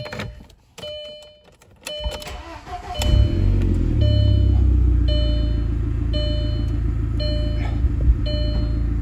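Audi A4 B5's 1.8-litre turbocharged four-cylinder cranks briefly and catches about three seconds in, then runs at a steady idle. A warning chime in the car beeps about once a second throughout.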